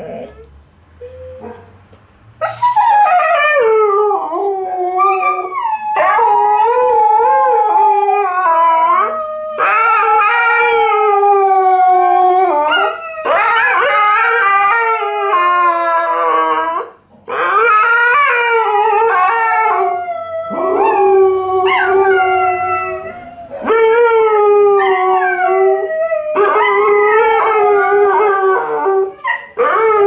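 An Alaskan Malamute and a Siberian Husky howling together: long, wavering howls at different pitches that overlap, with short breaks between them. It starts with a couple of seconds of quieter calls before the full howling begins.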